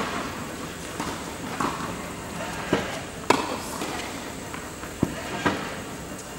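Tennis rally at the net: about six sharp pops of tennis balls struck by racquets and bouncing on a hard indoor court, each with a short echo from the hall.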